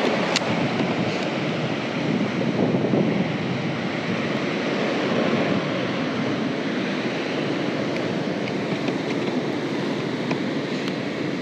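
Steady wind rushing and buffeting on the microphone over choppy water, with a single sharp click just after the start.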